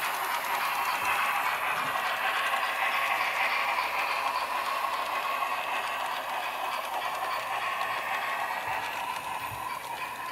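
Märklin model steam locomotive and tank wagons running on the track: a steady rattling clatter of wheels and motor that grows slowly fainter.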